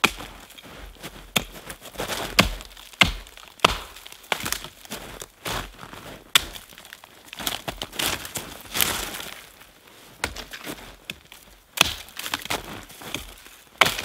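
Small axe chopping branches off a fallen tree, with sharp irregular knocks and cracks of the wood splitting and snapping, and branches rustling between strokes. The wood is frozen and coated in ice.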